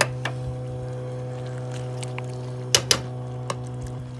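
A few sharp clicks and knocks of a utensil against a metal wok of simmering curry, the loudest being two close together just under three seconds in, over a steady low hum.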